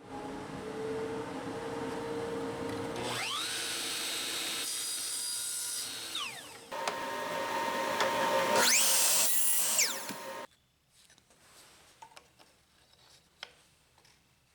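Trim router running and cutting wood, its pitch rising and falling twice. It stops abruptly about ten seconds in, followed by a few light knocks.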